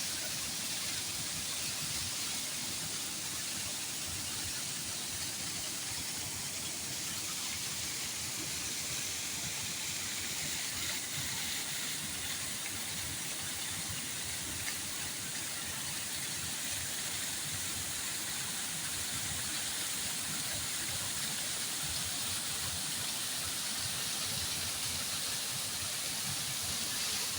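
Running water: a steady, unbroken rush with no pauses or changes.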